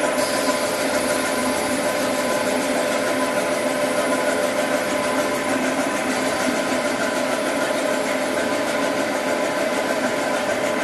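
An eight-colour dry offset cup printing machine running steadily: a constant mechanical drone with a few steady hum tones and a fast, even rattle over it.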